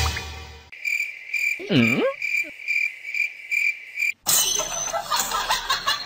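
Cricket chirping, about three chirps a second, with one swooping, pitched call near the two-second mark. About four seconds in it cuts off sharply, giving way to a louder, busy jumble of sounds.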